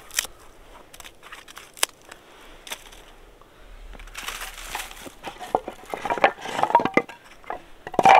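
Dry twigs and small branches being snapped by hand for kindling: a few sharp single snaps at first, then a denser run of cracking and crackling in the second half, the loudest crack near the end.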